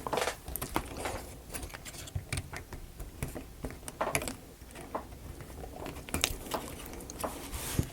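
Irregular light clicks and taps of small wooden kit pieces being handled and fiddled together while a tab is worked into its slot.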